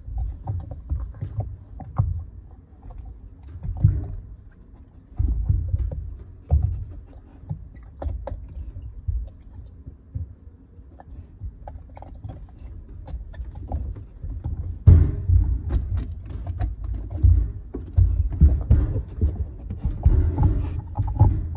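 A Staffordshire bull terrier mouths, licks and chews a rubber treat-dispensing ball, making irregular wet chewing clicks and soft knocks as the ball is pushed about. The noises grow busier in the last several seconds.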